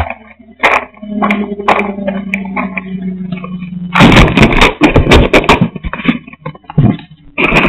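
Handling noise on a pen camera's built-in microphone: scattered knocks and clicks over a steady low hum, then loud rubbing and scraping from about four seconds in.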